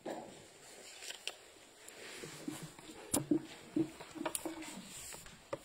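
Congregation stirring in a church after the service: scattered knocks and shuffling, with faint murmured voices in the middle.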